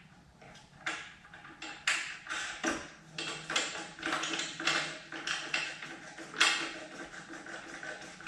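Irregular light taps, clicks and knocks of metal parts being handled as carriage bolts, washers and thumb nuts are fitted by hand to a lawn edger's handle.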